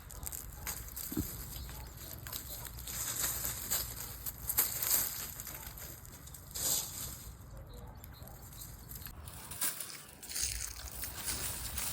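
Chickens foraging outdoors: scattered light rustles and taps.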